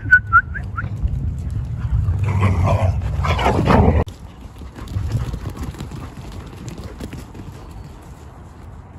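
Dog whining in a few short high calls at the start, then about two seconds of louder, rougher dog noise that cuts off abruptly about four seconds in.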